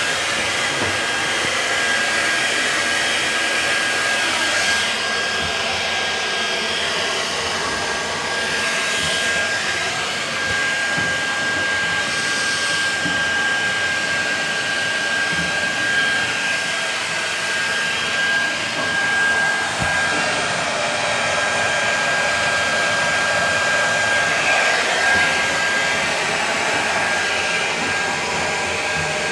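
Handheld hair dryer running steadily with an even airflow rush and a high motor whine, blowing construction dust and debris out of a door's concealed hinges.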